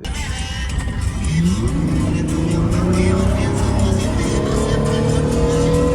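Car engine accelerating hard, its pitch rising steadily through a long pull, over loud music with a beat.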